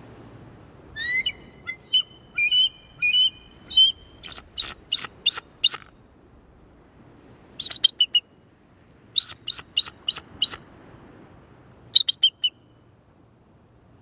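An eagle calling in high-pitched, piping chatters. A long series of whistled notes runs into quick, sharp repeated notes, followed by three shorter bursts of chattering with pauses between them.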